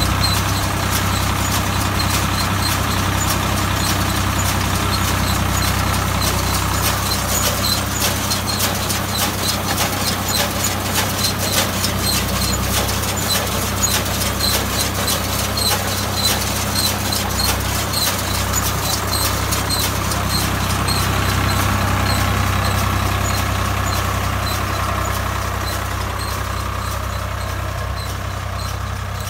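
Swaraj 744 XM tractor's diesel engine running steadily while it drives a round straw baler, with a rapid rhythmic mechanical clatter through the middle stretch that eases off near the end.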